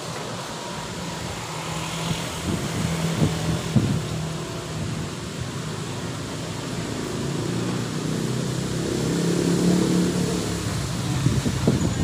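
Road traffic: passing vehicles' engines hum twice, once about a second in and again more strongly toward the end, over a steady hiss of gusty wind through the tree leaves.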